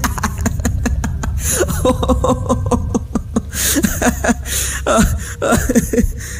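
A man laughing loudly and heartily in a long run of short 'ha-ha' bursts, each dropping in pitch, over a steady low background drone.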